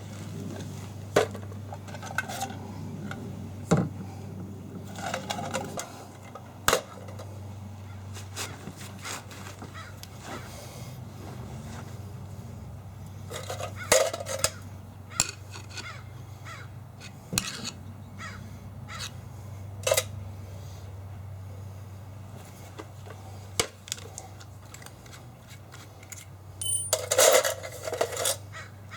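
Scattered light clicks and knocks of small hard objects being handled, over a steady low hum. A crow caws a few times, loudest near the end.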